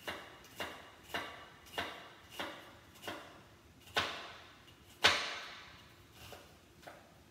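Chef's knife slicing an onion on a cutting board, the blade knocking the board in a steady rhythm a little under two strokes a second. Two harder knocks come about four and five seconds in, then a few lighter strokes.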